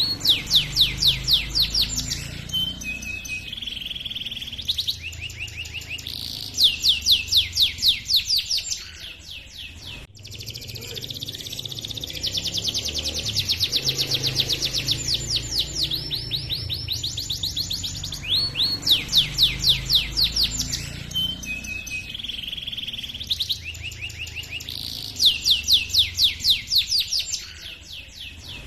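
Domestic canary singing a long rolling song: phrases of fast trills of rapidly repeated notes, about eight a second, alternating with softer warbled passages.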